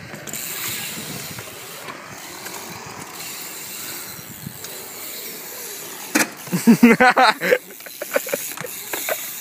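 BMX bike riding over skatepark concrete, giving a steady rolling hiss. About six seconds in comes a string of loud, short, pitched sounds lasting a second or so, then a few sharp clicks.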